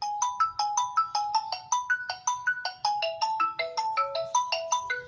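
Mobile phone ringing with a melodic ringtone, short notes stepping up and down about four a second: an incoming call from the GSM alarm's auto-dialer, the alert that the shutter's magnetic switch has been triggered.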